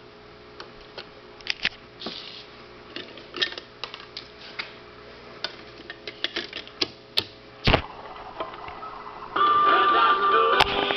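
Music from a 45 on a solid-state portable record player stops abruptly, leaving about nine seconds of scattered clicks and ticks through its speaker with one loud thump near the end. The record's music with singing comes back in near the end.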